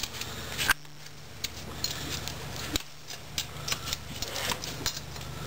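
Irregular light metallic clicks and taps from a farrier's tools working on a horse's hoof, over a steady low hum.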